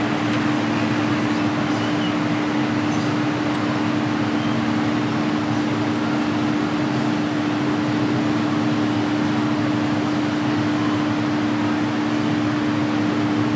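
A steady hum of two constant low tones under an even hiss, unchanging throughout, with no clicks or other distinct events.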